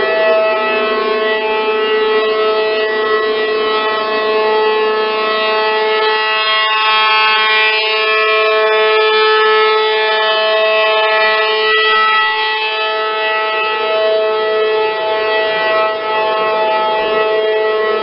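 Outdoor tornado warning siren sounding a steady wail, several tones held together, swelling and fading slowly in loudness.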